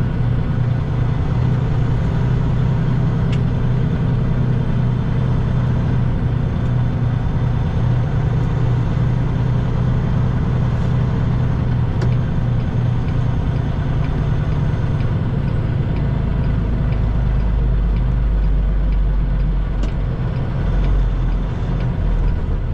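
Semi truck's diesel engine running steadily at low speed, a low drone; about sixteen seconds in the engine note drops deeper.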